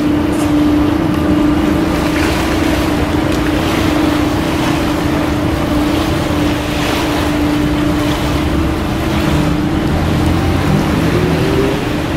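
Steady motor drone over the wash of river water and wind on the microphone; the drone rises slightly in pitch near the end.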